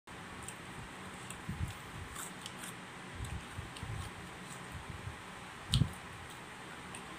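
Close-up eating sounds of someone chewing fresh fruit: irregular soft crunches and wet mouth clicks, with one sharper crunch near the end, over a steady low room hum.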